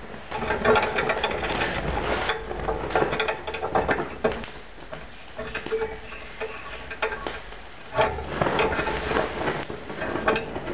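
Molten cast iron pouring from a crucible into a sand mould and spilling onto the wooden plank beneath, which bursts into flame: a dense, irregular crackling and sizzling.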